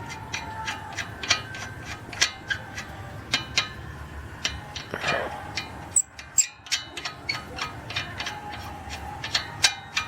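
Irregular metallic clicks and ratcheting as the remaining wheel nuts are threaded onto the studs of a spare wheel, about two or three clicks a second.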